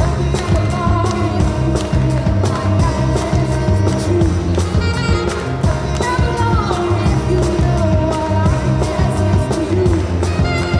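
A woman singing a pop song into a microphone with a live band: an electric bass plays a low line in steps under a steady drum beat.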